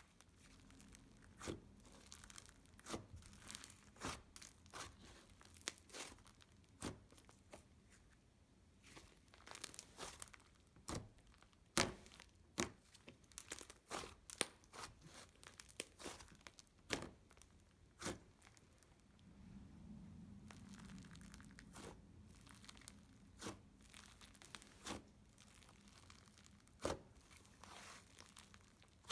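Creamy, dense butter slime being stretched, squeezed and pressed by hand, giving irregular sharp pops and crackles several times a second: the sizzles that this texture makes.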